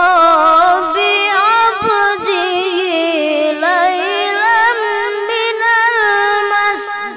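A boy reciting the Quran in the melodic qori style into a handheld microphone. He holds long high notes, ornamented with quick wavering turns in pitch.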